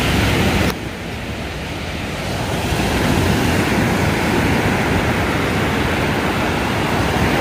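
Surf washing onto a sandy beach, a steady rush of breaking waves. The sound drops abruptly under a second in, then slowly builds again.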